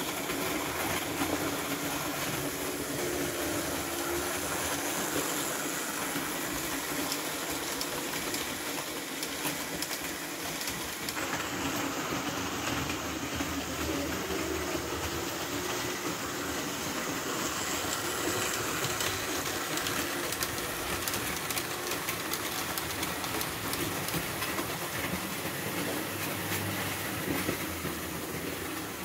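Model train running on its track: a steady mechanical running noise peppered with rapid fine clicks of the wheels over the rails.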